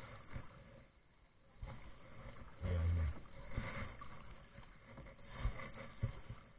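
Kayak paddling on calm water: double-bladed paddle blades dipping and dripping, with a brief low sound about halfway through and two sharp knocks near the end from the paddle or hands bumping the hull.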